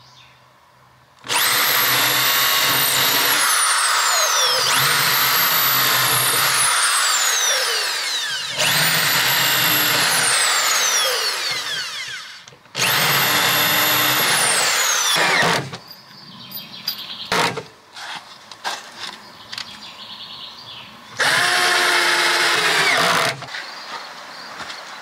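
Power drill run in about five bursts of a few seconds each, its high whine falling in pitch during each run. Short clicks and knocks sound between the later runs.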